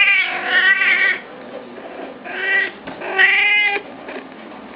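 Grey domestic cat meowing three times: a long meow that ends about a second in, a shorter one a little after two seconds, and a last one ending short of four seconds.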